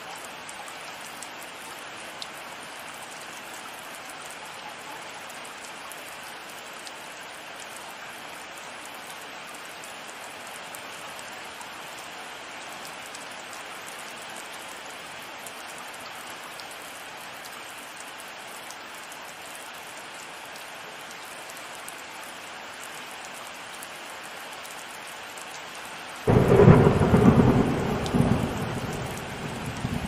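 Steady heavy rain falling. Near the end a sudden loud thunderclap breaks in, then rumbles and slowly dies away.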